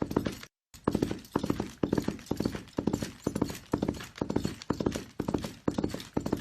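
Horse galloping: clusters of hoofbeats repeating in a steady rhythm about twice a second, each cluster a quick run of three or four strikes. The hoofbeats cut out briefly about half a second in.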